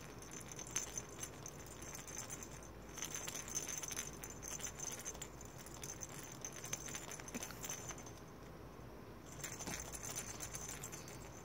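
Faint rattling and jingling of a baby's toy being shaken by hand, in three short spells.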